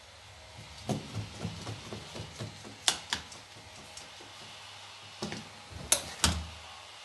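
Carpet fitter's knee kicker and hand tools being handled on the floor: scattered light knocks and clicks, with a sharp clack about three seconds in and two more around six seconds.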